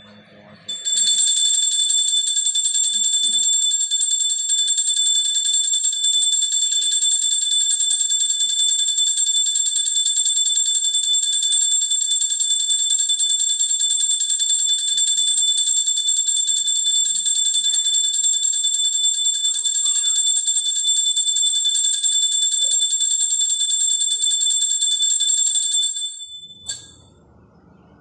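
Puja hand bell rung continuously and very fast during the abhisheka worship, a loud high ringing that stops abruptly near the end.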